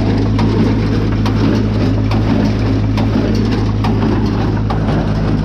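Tractor engine running steadily at about PTO speed, driving a hay baler. A light knock comes a little more than once a second from the baler's plunger strokes.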